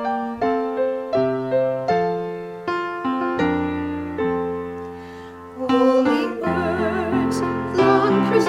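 Piano playing a slow melody of separately struck notes over held chords; a little over halfway through, a solo singer with wide vibrato comes in over the piano.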